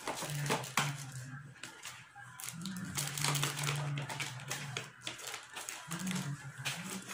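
Paper and cardboard takeout packaging crinkling and rustling as it is opened and handled. Underneath runs a low hum that shifts in pitch a few times.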